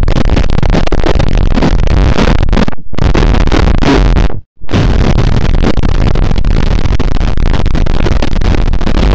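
Cartoon dialogue pushed through heavy distortion effects into a loud, harsh, clipped wall of noise with no words left to make out. It cuts out for a moment about four and a half seconds in.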